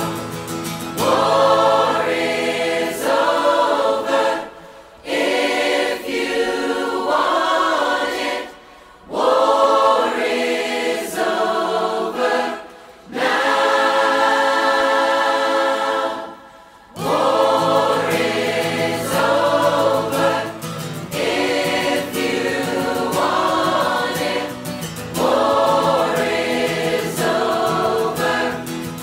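Background music: a choir singing in phrases with instrumental backing, with brief pauses every few seconds.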